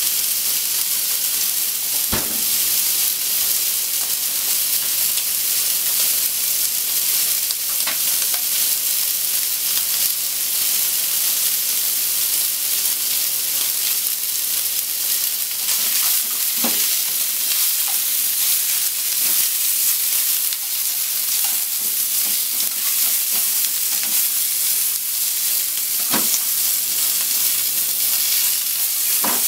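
Cubed pork belly frying in a frying pan: a steady sizzle, with a few sharp pops spaced several seconds apart.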